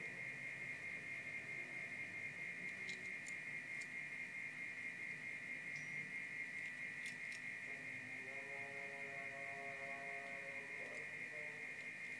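Low background noise led by a steady high-pitched whine, with a few faint clicks as a small die-cast toy car is turned over in the fingers. About eight seconds in, a faint steady pitched tone with overtones sounds for about three seconds.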